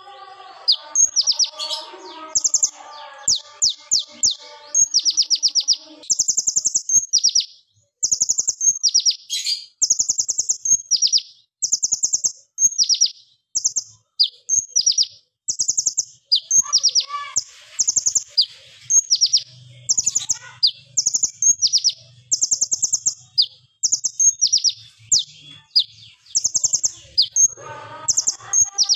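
Male kolibri ninja (purple-throated sunbird) singing: a long run of short, high, rapid-fire trills, each a quick burst of fast notes, repeated one after another with brief gaps.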